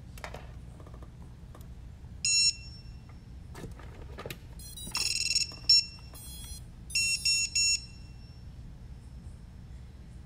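Short, high electronic beeps, all at the same pitch, come from the FPV quadcopter's gear as it is powered up: one about two seconds in, a longer one around five seconds, then a quick group of three. Light clicks and rattles of handling come between them.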